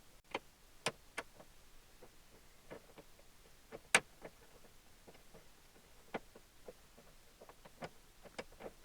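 Faint, scattered clicks and taps of hardware being fitted on a window regulator inside a car door, with one sharper knock about four seconds in.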